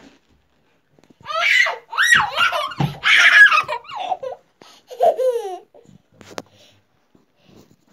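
A young child laughing loudly in high-pitched squeals and giggles for about four seconds, which then die away.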